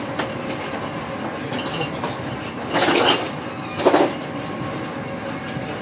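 Steady running noise of an InterCity 125 (HST) passenger coach at speed on the track. Two short clinks come about a second apart, roughly three and four seconds in.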